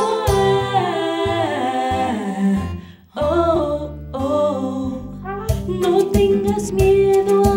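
A woman singing into a handheld microphone over instrumental accompaniment with a steady beat. The music drops out briefly about three seconds in, then the voice and the beat come back.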